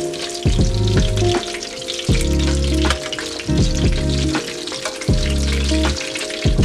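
Breaded flounder fillets frying in shallow hot oil, a dense steady sizzle full of small crackles as the pieces are turned in the pan. Background music with a bass line plays underneath.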